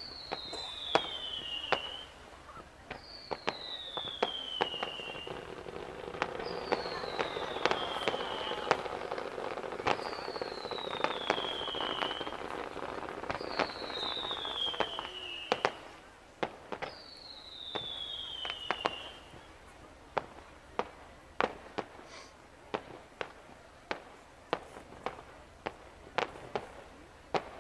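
Fireworks display: a long run of sharp bangs and crackles from bursting shells. Over the first two-thirds, a falling whistle repeats six times, about three and a half seconds apart.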